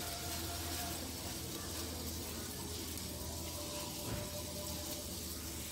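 Gas stove burner hissing steadily with a low hum under an aluminium pot of water and tteokbokki rice-cake dough, the water heating back up toward a boil.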